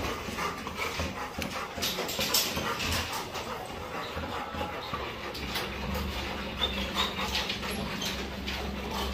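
Labrador retriever whimpering and panting softly while being held, with scattered handling clicks. A low steady hum comes in about halfway through.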